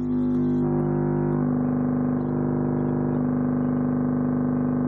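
Amplifier-driven subwoofer playing a loud, steady bass tone, harsh with many overtones, that holds at one level throughout.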